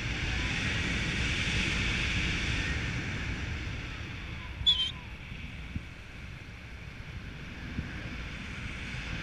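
Wind noise on the microphone during a tandem paraglider flight: a steady low rumble and hiss that eases off about halfway through. A brief sharp high-pitched sound comes just before it eases.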